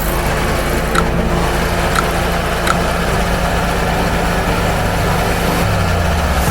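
Air-cooled 26 kW Generac home standby generator engine running steadily, with three short clicks in the first three seconds.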